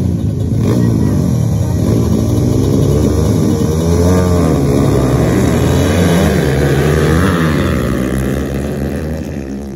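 Several motocross dirt bikes running together: their engines rev up and down in overlapping rising and falling pitches, then accelerate away, the sound easing off over the last two seconds.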